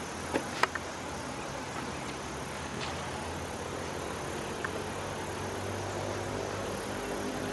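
Steady outdoor background hiss with a low hum under it, broken by a few sharp clicks: three within the first second and one about three seconds in.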